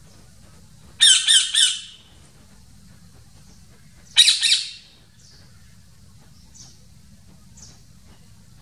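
Parrot squawking: a quick run of three harsh squawks about a second in, another loud squawk about four seconds in, then a few faint short chirps.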